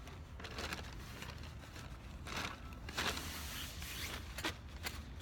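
Several short swishing, scraping rustles of tent gear being handled.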